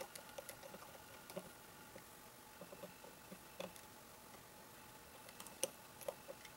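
Faint, scattered small metallic clicks and ticks as a screwdriver turns a screw into the steel frame of a Colt Single Action Army revolver, the sharpest click a little before the end.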